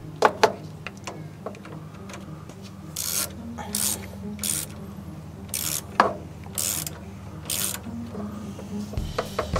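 Ratchet clicking in short strokes, about one a second, as the generator's positive power cable is secured, with a few light handling clicks near the start.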